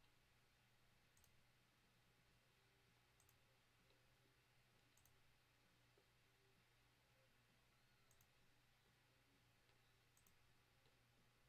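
Faint computer mouse clicks, five in all, two to three seconds apart, each a quick high click, over near silence with a low steady hum.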